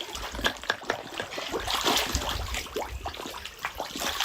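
Water trickling, with many small irregular splashes at the surface as fish come up to feed.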